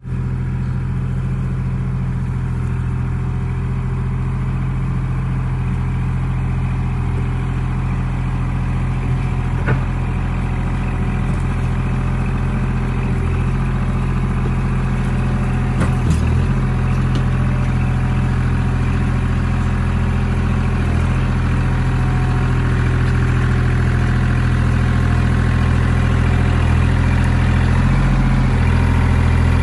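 Kubota L2501 compact tractor's three-cylinder diesel engine running steadily as the tractor pushes clay with its front loader bucket, growing louder as it draws closer. Two brief clanks, about ten and sixteen seconds in.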